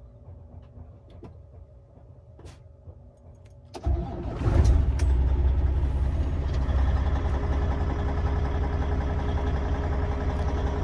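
Volvo semi truck's diesel engine cranking and catching a little under four seconds in, then settling into a steady idle. Before it starts, only a faint hum with a few light clicks.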